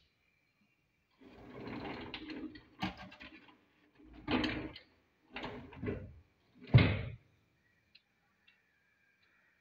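Wooden bed's storage drawer being slid and handled. A long scraping slide is followed by a sharp knock and three shorter scrapes or bumps, the last, about seven seconds in, the loudest thump.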